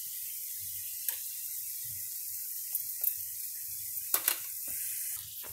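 Chicken pieces frying in oil in a pan, sizzling steadily, with a few sharp crackles and pops, the strongest about four seconds in.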